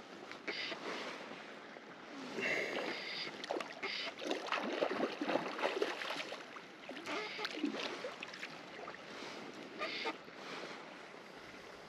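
Fly line being stripped in by hand while a hooked trout is played, giving irregular swishing and rustling noises over water.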